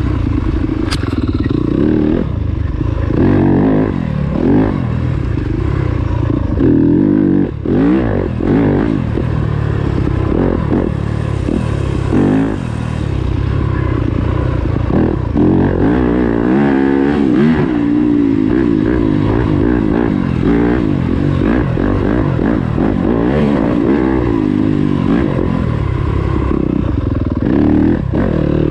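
A 2020 Yamaha YZ250FX's single-cylinder four-stroke engine riding off-road: the revs rise and fall over and over as the throttle is opened and shut, with brief drops off the throttle and a few short knocks.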